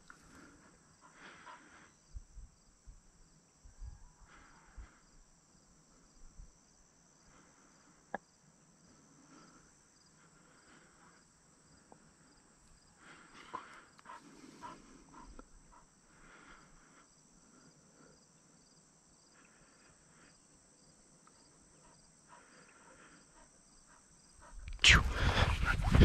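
Quiet grassland with a steady high insect chirring throughout, faint soft rustles and a single sharp click about eight seconds in. Near the end a loud rush of movement and footsteps through grass takes over.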